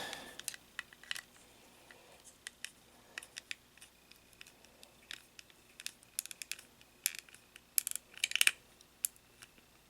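Scattered light clicks and taps of small plastic toy-figure parts being handled and fitted, with a quick run of clicks about eight seconds in.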